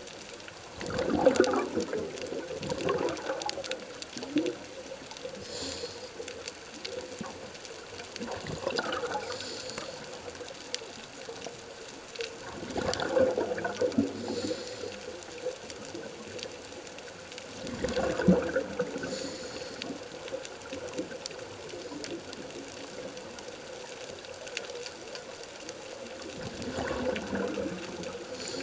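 Scuba diver breathing through a regulator, recorded underwater: a burst of exhaled bubbles every four to eight seconds, with a faint high hiss of the regulator between some of them.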